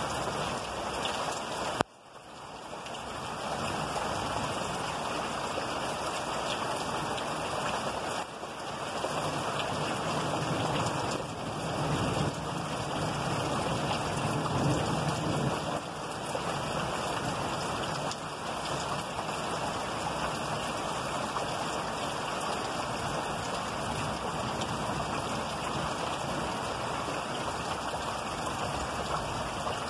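Heavy rain pouring steadily during a night thunderstorm. A single sharp crack comes about two seconds in, after which the rain sound drops away and swells back. A low rumble rises and fades around the middle.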